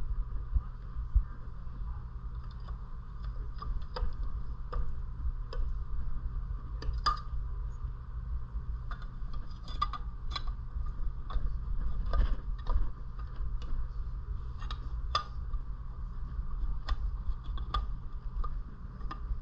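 Scattered light clicks and taps of hand tools on metal, at irregular intervals, as a Predator 212cc engine's flywheel is worked at to free it from the crankshaft, over a steady low hum.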